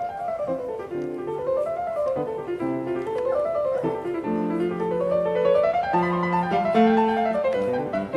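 Background piano music: flowing runs of notes rising and falling over held chords.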